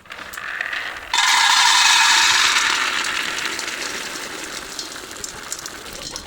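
Groundnuts being poured into a hot saucepan: a sudden loud rush of noise about a second in, which slowly fades as they settle in the pan.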